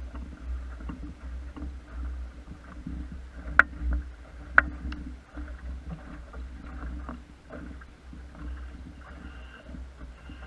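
Water splashing and slapping against the hull of a small wooden sailing dinghy under way, over a steady low rumble. Two sharp knocks about a second apart near the middle are the loudest sounds.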